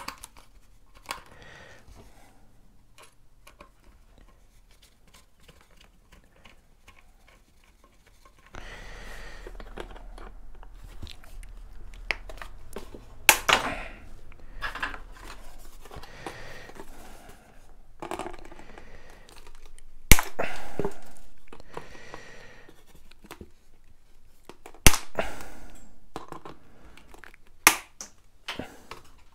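Side cutters snipping the overlong pins of control horns on an EPO foam tail: four sharp snaps spread over the second half, the loudest near the middle. Between the snaps the foam part rustles and creaks as it is handled, starting about eight seconds in.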